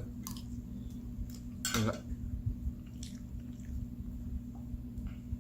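Cutlery clicking against a plate, with chewing, over a steady low hum.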